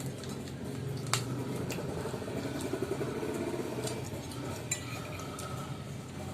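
Eating utensils clinking and scraping against a plate during a meal, with scattered sharp clicks, a strong one about a second in and several more in the middle.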